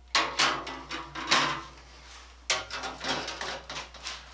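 Handsaws being set down on a wooden bench among other saws: two spells of knocking and clattering, steel blades and wooden handles striking the bench and the saws already lying there, the second starting about two and a half seconds in.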